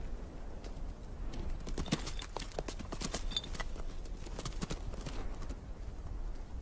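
Bharal hooves clattering on rock and loose stones as the sheep run on a steep slope: an irregular string of sharp clicks and knocks, thickest in the middle.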